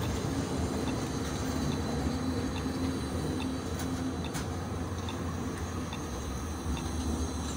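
Electric light-rail tram running slowly past, with a steady low rumble and a motor hum.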